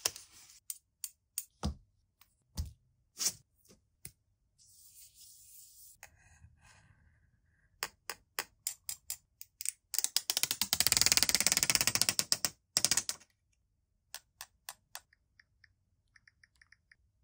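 Sharp clicks and taps from handling a Samsung Galaxy S24 Ultra and its SIM tray, a brief hiss, then a dense rasping run of rapid ticks as a serrated knife blade is scraped across the phone's back. Near the end come faint light ticks of typing on the touchscreen keyboard.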